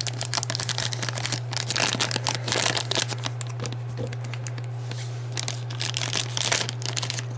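Plastic packaging crinkling and rustling in the hands, with irregular crackles throughout, as a miniature is unwrapped from its booster pack.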